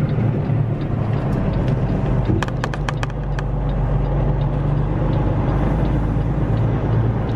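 Semi truck's diesel engine running steadily, heard from inside the cab as the tractor-trailer turns at low speed. A quick run of about seven clicks comes about two and a half seconds in.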